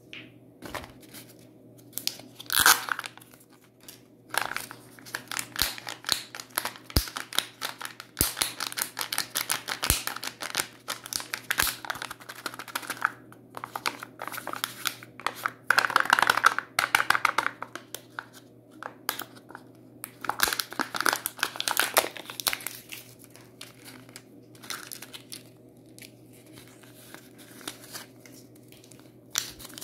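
Foil and plastic of a Kinder Joy egg crinkling and tearing as the sealed lid and plastic capsule are handled and opened, in irregular bursts with sharp clicks between. The loudest crinkling comes a few seconds in and again about halfway through.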